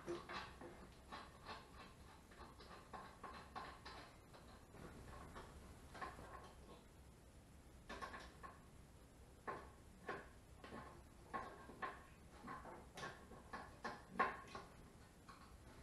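Faint, scattered clicks and light knocks from hands working a propane regulator hose and its fitting on a torpedo heater, with a small cluster of knocks near the end.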